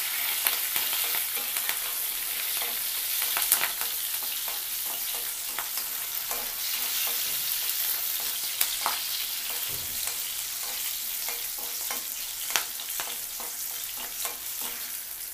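Cut green chillies and cumin seeds sizzling in hot oil in a metal kadai, a steady high hiss, with scattered sharp clicks as a spatula stirs them against the pan.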